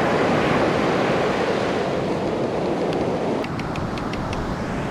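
Surf breaking and washing up a beach, with wind on the microphone. A quick run of faint ticks comes a little past the middle.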